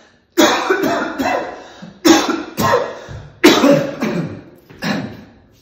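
A person coughing hard in four bouts about a second and a half apart, each bout two or three harsh coughs that die away.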